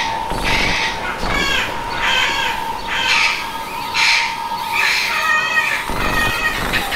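Eclectus parrots squawking: a run of harsh, crow-like calls, one or two a second, with a steady tone underneath.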